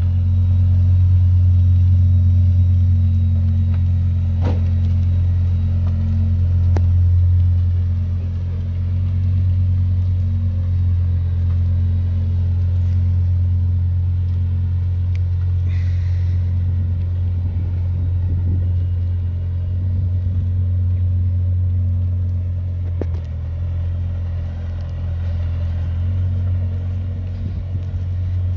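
Lamborghini Huracán race car's V10 engine idling with a steady low drone as the car rolls slowly away, growing a little fainter.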